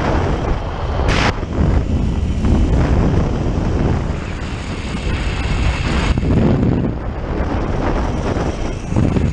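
Rushing wind buffeting the camera microphone during a fast zipline ride, a loud continuous rumble with a short sharp hiss about a second in.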